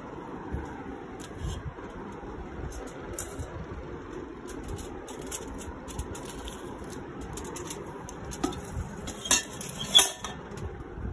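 A metal plate lined with foil clinking and knocking against the glass bowl of a glass-top oven as the tray is handled and set inside, with two sharper clinks near the end, over a steady low background noise.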